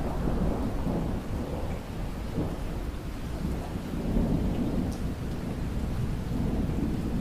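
Steady low rumbling noise that swells and eases every second or so, like heavy rain with thunder.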